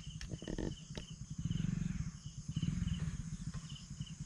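Low, uneven rumble of a fast-flowing, flood-swollen muddy stream, with an insect chirping in short, evenly repeated high pulses.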